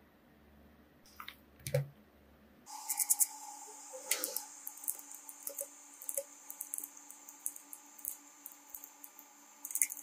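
Irregular plastic clicks and taps as keycaps are pried off a mechanical keyboard with a keycap puller. A steady hum and hiss comes in about three seconds in and runs under them.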